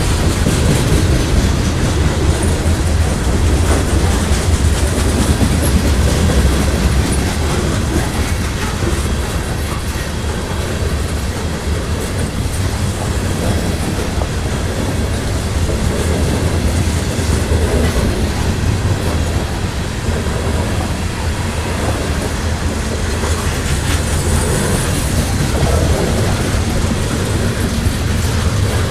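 Freight cars of a grain train rolling past, with steady clickety-clack of the wheels over the rail and a continuous low rumble.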